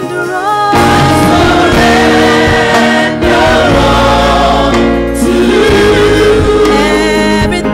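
Gospel choir of mainly women's voices singing a slow worship song together in long held notes over a steady low accompaniment.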